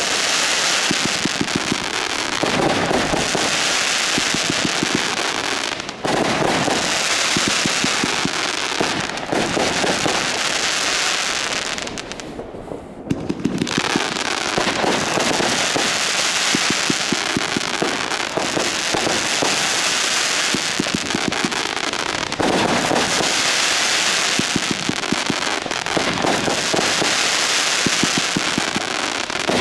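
Consumer fireworks going off in quick succession: a dense stream of bangs and crackles over a hiss that swells and fades every few seconds. There is a brief lull about twelve seconds in.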